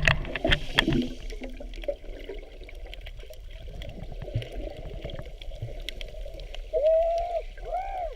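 Water sloshing and gurgling, with several knocks in the first second or two and two short rising-then-falling calls near the end.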